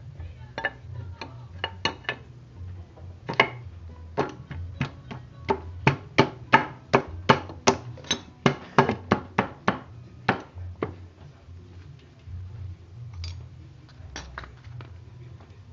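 Sharp taps and clicks from hand work on a Kawasaki Blitz motorcycle's kick-starter and clutch-side engine parts: a quick run of taps at about two to three a second, loudest in the middle, over a steady low hum.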